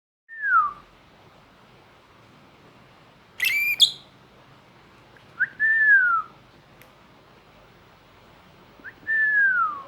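Pet lovebird making unusual whistle-like calls: three clear falling whistles, each under a second, and a short harsher, higher squawk about three and a half seconds in.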